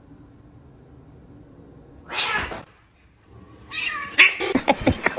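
A domestic cat meowing: a short call about two seconds in, then a longer, louder call starting near the end that breaks into rapid pulses.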